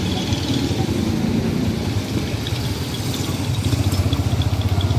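A motor vehicle engine idling close by, a low steady pulsing that grows stronger in the last second or so.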